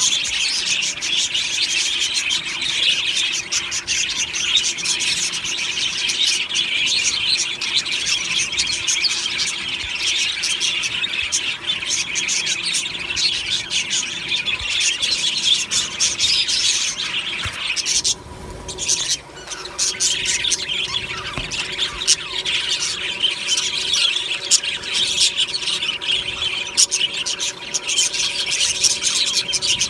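A colony of budgerigars chattering and chirping together in a dense, continuous warble of many overlapping calls. It briefly falls away a little after halfway through, then picks up again.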